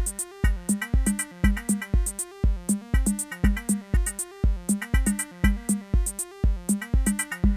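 Live techno groove from hardware synthesizers and drum machines: a steady four-on-the-floor kick about two beats a second, hi-hats between the kicks, and a repeating stepping synth line.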